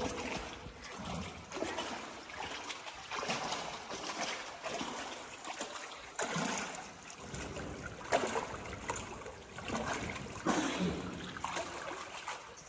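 Water splashing and trickling on a cave river, with short splashes every second or two.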